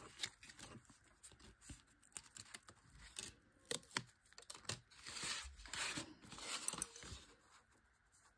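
Stiff kraft cardstock being handled, folded and pressed flat: faint rustling, scraping and light taps, with a longer stretch of rustling about five seconds in.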